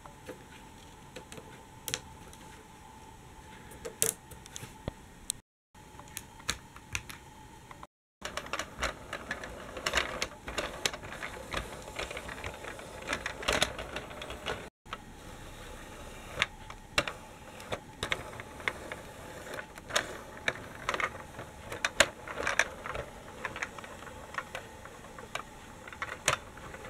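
Toy tram rolling along a wooden track: irregular light clicks and rattles as its wheels run over the rails and sleepers.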